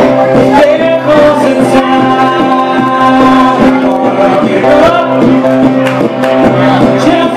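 Live acoustic guitar being strummed, with a singer's voice holding long notes over it.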